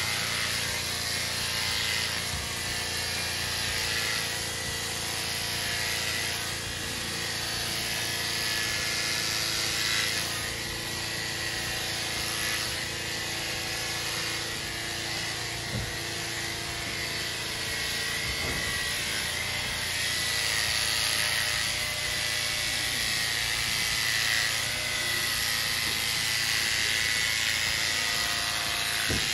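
Corded electric horse clippers running with a steady hum as the blades cut through a horse's coat.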